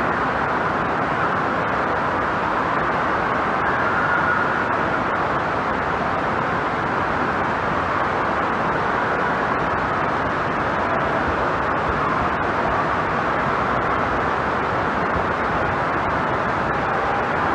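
Indoor water park noise: a steady, even rush of water pouring down the slides' flumes.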